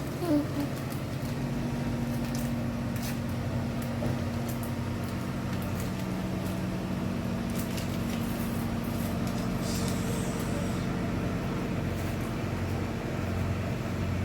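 A steady low mechanical hum, engine-like, with a few faint clicks over it.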